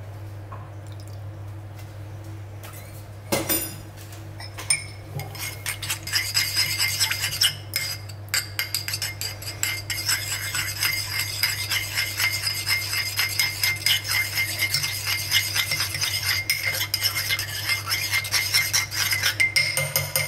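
Metal spoon stirring a thick creamy sauce in a ceramic bowl, clinking against the bowl. Two single clinks come about three and a half and five seconds in, then fast, steady clinking runs through the rest.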